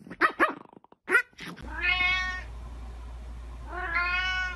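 Two drawn-out cat meows about two seconds apart over a steady low hum, after a few short, sharp animal growls at the start.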